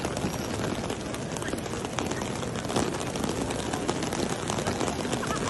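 Steady rain falling on a wide open courtyard with a wet tiled floor: an even hiss with a dense patter of drops.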